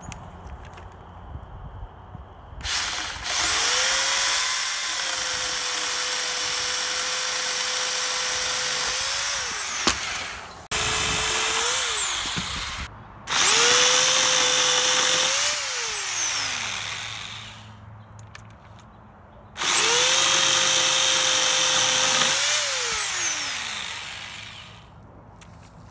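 Sun Joe 10-inch, 8-amp electric pole saw cutting through an overhead tree branch. Its motor and chain run in four bursts, the first the longest. Each burst spins up to a steady high whine, then drops in pitch as the saw winds down.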